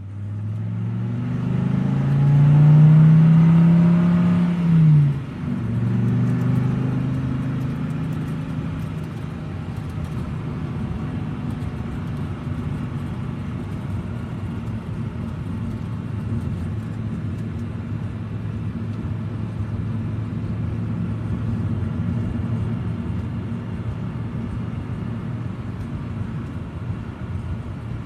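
Car engine driving slowly. The engine note rises for the first few seconds and drops abruptly about five seconds in, then holds a steady low note.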